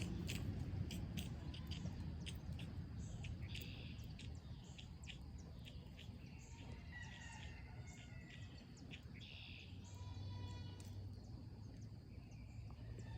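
Small birds chirping and calling, with a quick trill about ten seconds in, over a faint steady low hum. A scatter of sharp clicks runs through the first half.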